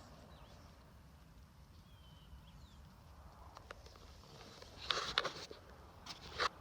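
Faint, high bird chirps now and then over a quiet outdoor background, then two short bursts of scuffing clatter, one about five seconds in and one near the end.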